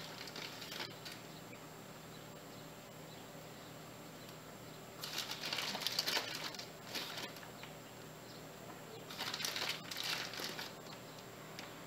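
Rustling as hands dig into a package of chocolate chips, in two bursts about four seconds apart, over a faint steady hum.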